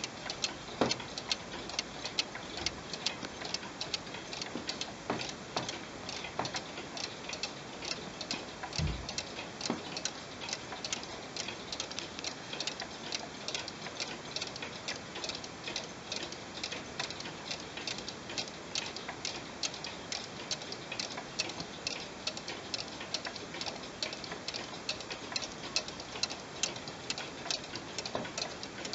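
Weight-driven mechanical cuckoo clock (vintage Lötscher Classic Brienz Chalet) ticking steadily, its pendulum movement giving an even run of clicks several times a second. A single low thump comes about nine seconds in.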